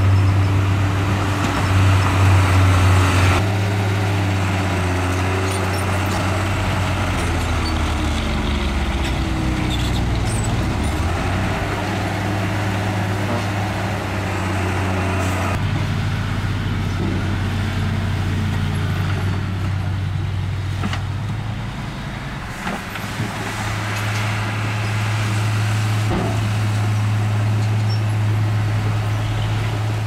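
Diesel engines of heavy earthmoving machinery at work, a bulldozer and a ten-wheel dump truck, running steadily with the engine pitch rising and falling as they work under load. It is louder and hissier for the first few seconds.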